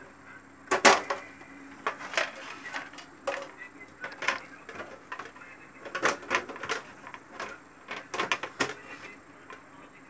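Irregular knocks and light clatter of hands handling and tapping a small refrigerator's thin aluminium evaporator plate. There are about a dozen sharp strikes, the loudest about a second in.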